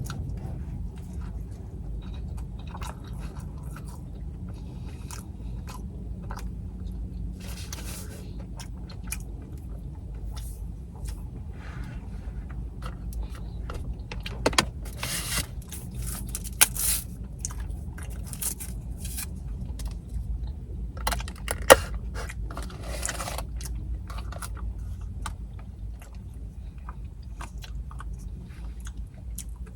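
A person chewing and biting into fish slider sandwiches, with crunching and wet mouth sounds in short bursts over a steady low hum. There are louder bites around the middle and one sharp click.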